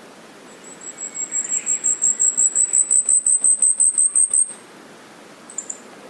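Asian stubtail singing: a thin, very high-pitched, insect-like series of rapid notes, about six a second, that swells steadily louder and rises slightly in pitch for about four seconds, then stops.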